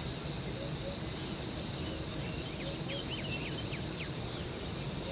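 Insects droning steadily at one high pitch, with a few short high chirps about halfway through.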